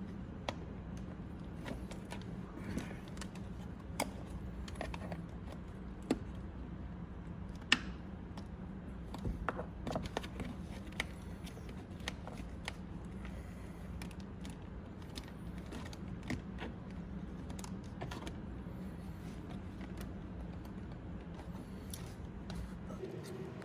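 Scattered light clicks and taps of car interior trim pieces and wiring being handled, over a steady low hum.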